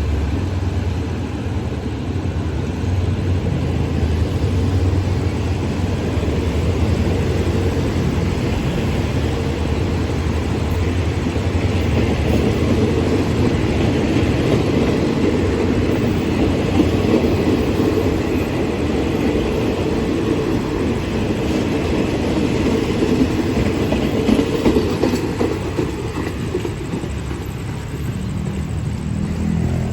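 A train of passenger coaches behind a Hitachi diesel-electric locomotive rolling past: a steady rumble of wheels on rail that eases off near the end.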